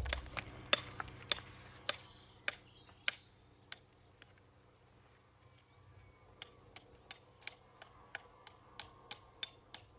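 Sharp hammer taps on stone, a steady tap about every half second, then a short pause, then quicker tapping at about three a second.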